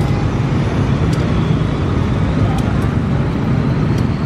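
Diesel engine of a KAI CC 203 diesel-electric locomotive running with a steady low rumble as the locomotive moves slowly during shunting.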